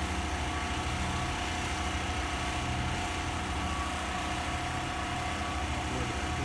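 An engine running steadily at a constant speed, a low hum with a faint steady whine above it.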